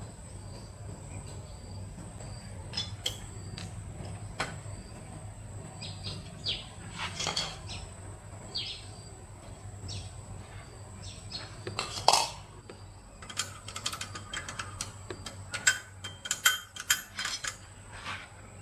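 Hand tools and metal engine parts clinking and scraping in irregular clicks and knocks during a small engine repair, loudest about twelve seconds in, with a quick run of clicks near the end. A steady low hum runs underneath.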